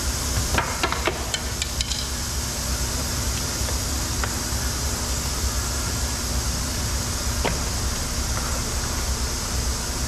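Steady workshop hum and hiss, with a quick cluster of sharp plastic clicks and knocks in the first two seconds and a couple of single ticks later as the car's door trim panel is handled.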